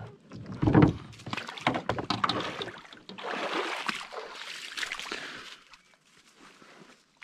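A canoe knocking and scraping onto a rocky shore, with a heavy thump about a second in. This is followed by a stretch of rustling and crunching through brush and dry dead branches, which fades to faint handling noise near the end.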